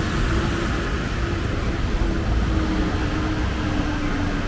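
Road traffic noise on a busy city street: an even wash of passing and idling cars with a steady low hum running under it.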